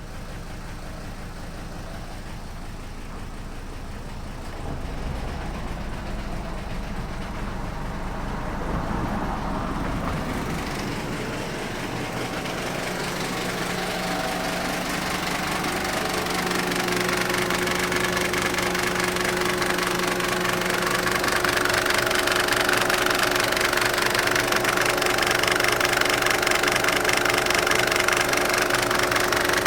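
Mercedes-Benz OM602 five-cylinder diesel idling rough with diesel knock after its idle was turned down to about 750 rpm, along with a strange noise near the belt tensioner and water pump. The engine grows louder across the clip, and a steady whine joins in about halfway through.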